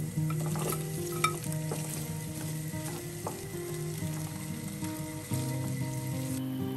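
Chicken and vegetables sizzling in a frying pan as chopped vegetables are tipped in from a bowl and stirred with a spatula, with a few sharp clicks, the loudest about a second in. Soft background music plays underneath.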